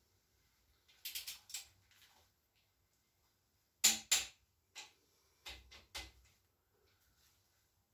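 Hand tools working on metal engine parts: short, sharp clicks and knocks in small clusters, the loudest pair about four seconds in.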